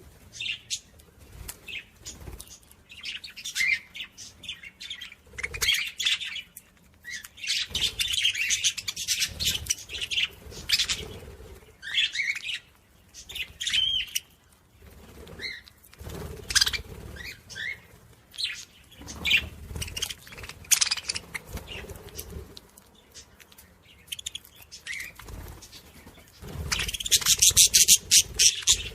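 Small birds chirping in irregular short bursts, with a loud, fast run of chirps near the end.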